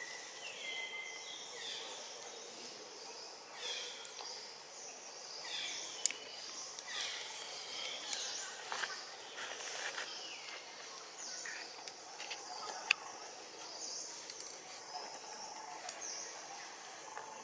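Outdoor forest ambience: many high-pitched chirps and short falling calls from wild animals over a steady background, with two sharp clicks, about six and thirteen seconds in.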